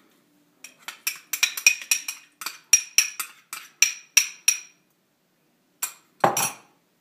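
A metal spoon stirring in a glass measuring cup, clinking against the glass in a quick run of about five strikes a second for about four seconds. A single louder knock comes near the end.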